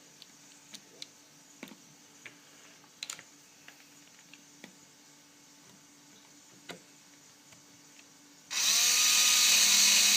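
Faint clicks and taps of plastic parts and screws being handled, then near the end a power drill-driver whirring for about two seconds, its pitch rising as it spins up, driving the screws that hold the multimeter's back cover.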